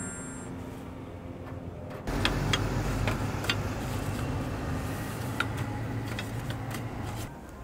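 Clicks and taps of small metal egg-bread molds on a griddle as they are brushed with oil: a handful of sharp clicks over a steady low rumble. A short descending chime fades out at the very start.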